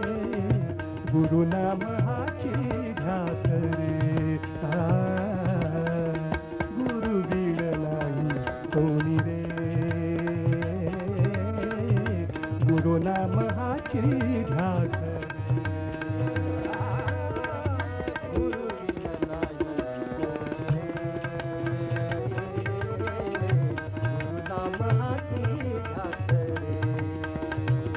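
Indian devotional music: tabla keeping a steady rhythm under a melody line that slides up and down in pitch.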